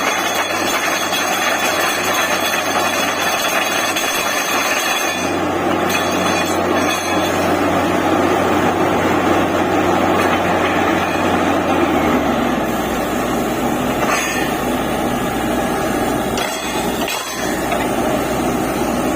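Borewell drilling rig running loudly, its engine and machinery making a steady mechanical din. The sound changes about five seconds in, when the high whining tones fall away, and again about twelve seconds in, when a deeper hum sets in.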